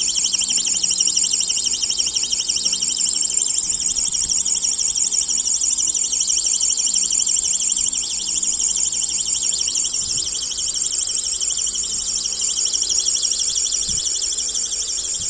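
Electronic alarm of a NEXTOOL 6-in-1 Thunder flashlight sounding: a loud, high-pitched, rapidly warbling siren tone.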